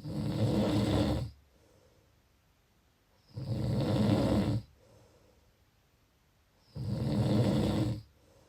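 Snoring: three loud snores, each a little over a second long, coming about every three and a half seconds, with faint breathing in the gaps between them.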